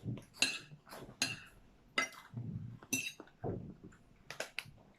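Cutlery and dishes clinking at a meal table: about half a dozen sharp clinks with a short ring, spread a second or so apart.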